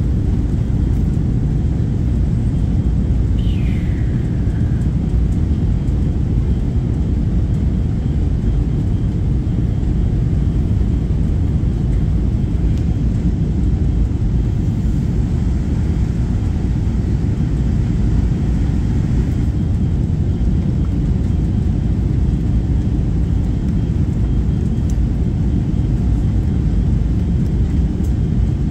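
Jet airliner cabin noise during the takeoff run and initial climb: the engines at takeoff thrust give a steady deep rumble. A brief falling whine comes about three seconds in.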